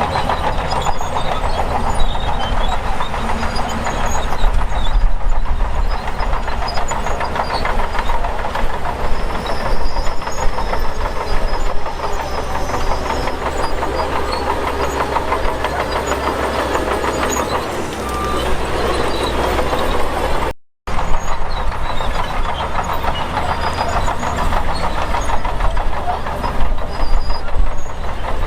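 Diesel earthmoving machinery at work: a heavy engine running under load with steady metallic clanking and rattling. The sound cuts out for a moment about three-quarters of the way through.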